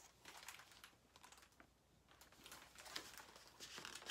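Faint rustling and soft clicks of a picture book's paper pages being handled and turned.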